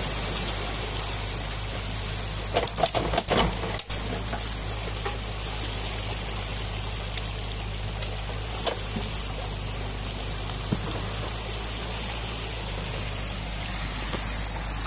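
Muddy water rushing out through a breach in a beaver dam, over the steady running of a New Holland Kobelco E50.2 mini excavator's engine. A few sharp knocks about three seconds in and one more near nine seconds.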